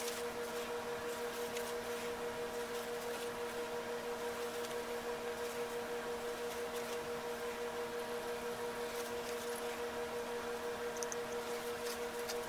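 Steady machine-like hum made of several fixed tones over a light hiss, with a few faint light clicks now and then.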